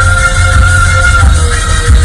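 Electronic music with a pulsing bass beat under long held synth notes.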